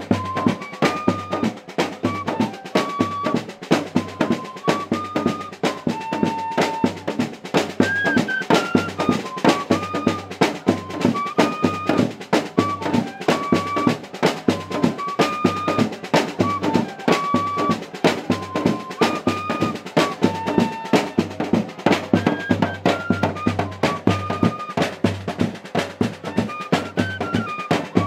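Music with snare and bass drum keeping a steady, fast beat under a short melody of held notes that repeats over and over.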